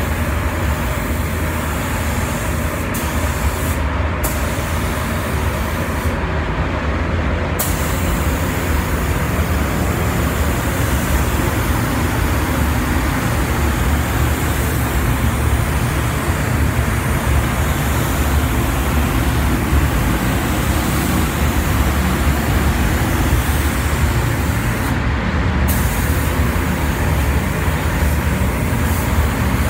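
Gravity-feed air spray gun hissing steadily as it sprays paint, over a steady low rumble. The hiss drops out briefly a few times, as the trigger is let off between passes.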